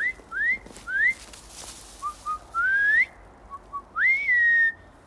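A person whistling a series of calls, as if calling in a cat: three short upward whistles, a few short low notes, then a longer rising whistle, and a last one that rises and is held for about half a second.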